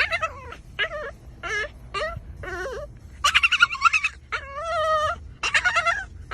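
A dog whining and whimpering in a run of short, high, wavering cries, with a longer held whine about four and a half seconds in.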